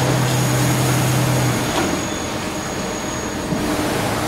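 Veneer peeling lathe running: a steady machine drone with a thin high whine over a noisy rush, its low hum dropping away about a second and a half in.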